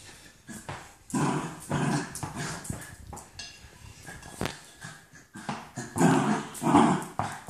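Lakeland terrier growling in play while shaking a stocking toy, in rough bursts about a second in and again around six seconds in, with a few sharp knocks on the wooden floor in between.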